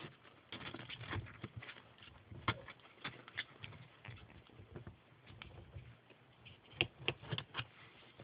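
Irregular light taps, clicks and clatter of a ferret scampering about and knocking its toy around, densest about two and a half seconds in and again near the end.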